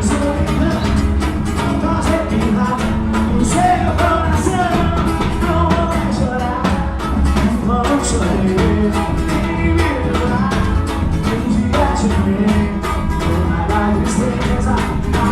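Live band music with a fast, steady percussion beat and singing.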